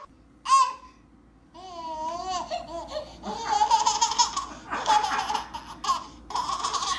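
A toddler squealing with a wavering voice, then laughing in long runs of quick, repeated giggles.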